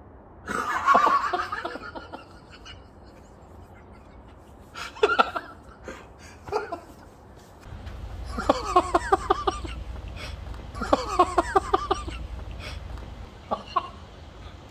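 Laughter: a short outburst about half a second in, then two runs of rhythmic 'ha-ha' pulses around eight and eleven seconds in, with a low rumble under the later runs.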